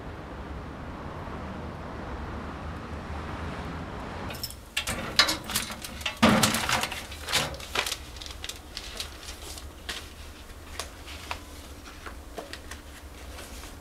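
Steady background noise, then a sudden change to a run of sharp knocks and clicks. The loudest come a few seconds after the change, and they thin out into lighter ticks.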